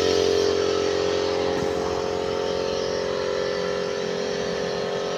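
Machinery running with a steady, even drone.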